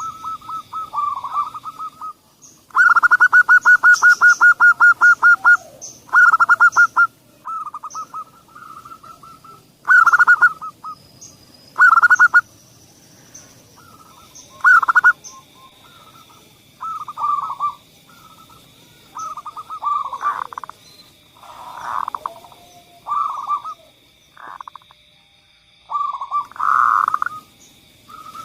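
Zebra dove (perkutut) song, played as a lure to set other perkutut singing: repeated phrases of fast, rolling coo notes. The longest and loudest phrase is a quick run of many notes about three seconds in, and shorter phrases follow every second or two. A faint, steady high tone sits behind the song from about halfway through.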